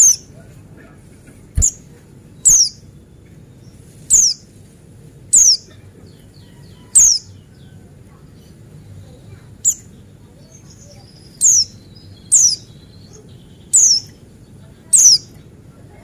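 Buxtoni white-eye (pleci) giving short, sharp, high-pitched calls that drop in pitch, repeated about every second or so, with faint soft twittering between them.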